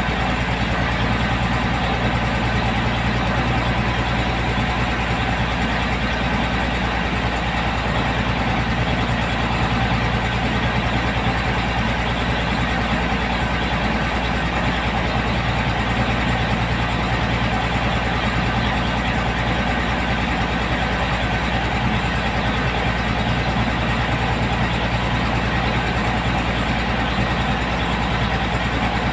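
Truck diesel engine running steadily at an even speed, with no revving or knocks.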